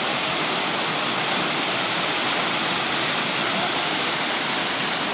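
Whitewater rushing steadily down a steep rock slide in a mountain river.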